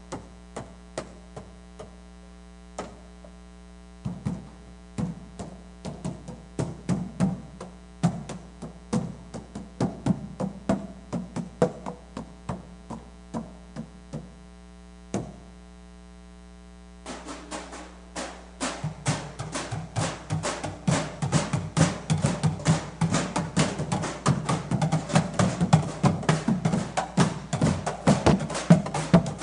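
Stomp-team percussion: sharp rhythmic hits, sparse at first, then after a short pause much denser and louder as the ensemble plays together. A steady electrical mains hum runs underneath.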